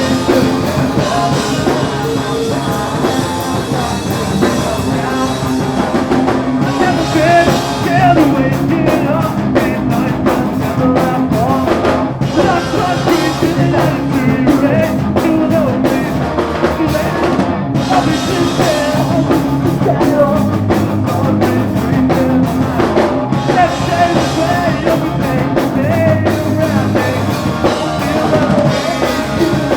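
A live punk rock band playing loud and without a break: drum kit, electric guitars and bass, with singing.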